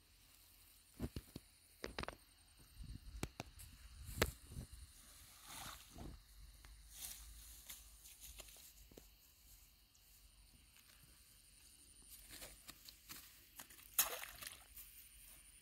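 Handling noises while a small fish is unhooked and put into a mesh keep net at the water's edge: scattered faint clicks, taps and rustles, with one louder sharp noise near the end.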